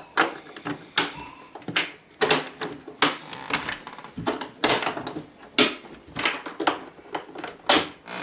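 Clamp latches of a hard plastic gun case being worked and snapped shut, and the case handled: an irregular run of sharp clicks and clacks, several of them loud.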